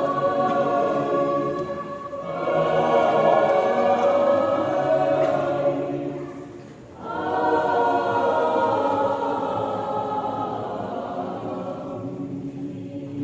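Mixed choir of men's and women's voices singing in harmony, holding long chords. The sound drops away briefly about six to seven seconds in, then a final long phrase comes in and slowly fades.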